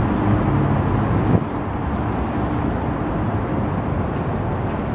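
Steady city street traffic noise, with a motor vehicle's engine hum that fades out after about a second and a half.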